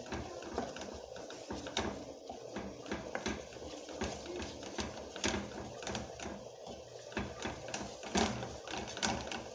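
Wooden spoon scraping and tapping against an aluminium saucepan while stirring a thick butter-and-flour roux, in a quick, irregular run of small knocks and scrapes.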